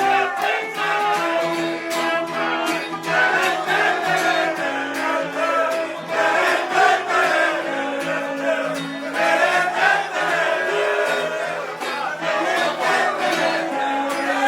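Acoustic guitar strummed steadily, playing the instrumental opening of a live acoustic song.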